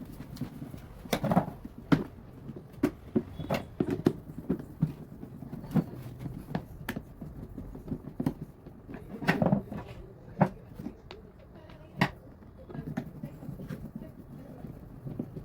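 Irregular clicks and knocks, a dozen or more, some sharper than others, over a low steady hum.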